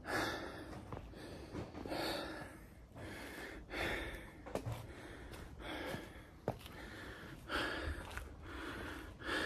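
A person's breathing close to the microphone, a breath about every two seconds, with a few faint clicks between breaths.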